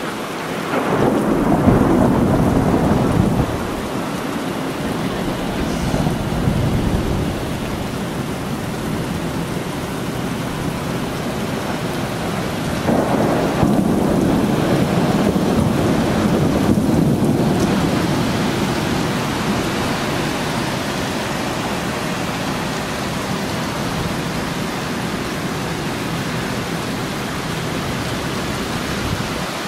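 Heavy rain falling steadily while thunder rolls: a loud low rumble about a second in lasting a couple of seconds, a shorter one around six seconds, and a longer rumble starting near the middle that fades over about five seconds.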